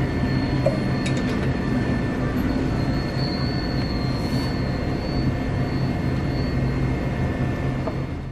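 Steady mechanical hum of a convenience store's interior, a constant drone with several steady tones and a few faint clicks.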